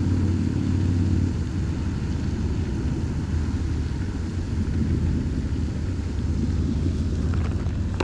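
A steady low rumble with no distinct events, a little stronger in the first second.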